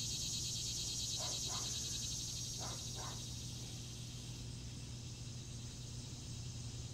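Steady night-time insect chorus, a high, finely pulsing trill of crickets or cicadas, added as background sound. A couple of short, fainter lower calls come about a second in and again about three seconds in.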